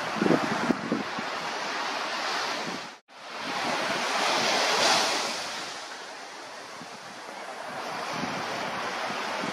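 Sea surf washing in a steady hiss, swelling about halfway through and easing again, with wind buffeting the microphone at the start. The sound cuts out for a moment about three seconds in.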